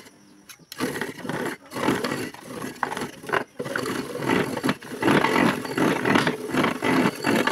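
Electric ice shaver grating a frozen block of chocolate ice-cream mix: a loud, rough grinding that wavers as the block is pushed against the blade. It pauses briefly at the very start, then runs on.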